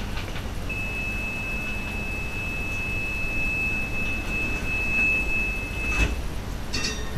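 Stadler Variobahn tram's door-closing warning: one steady high beep held about five seconds over the car's low hum, ending in a click, then a short run of clicks as the doors shut near the end.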